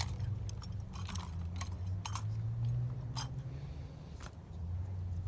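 Drill rifles being handled in a silent drill routine: irregular sharp slaps and clacks of hands striking the rifles, over a low steady rumble.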